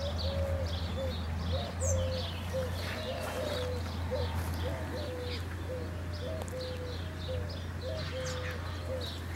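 A dove cooing in a long run of short, low notes, about two a second, with small birds chirping higher up.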